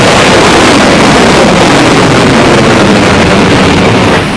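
Dragon test capsule's eight SuperDraco abort engines firing during a pad abort: a loud, steady rushing roar that drops off sharply near the end.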